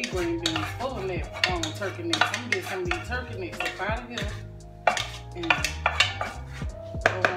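A wooden spoon scraping and knocking against a metal pot as food is spooned out of it into a bowl: a run of sharp taps and scrapes at uneven intervals. Background music plays underneath.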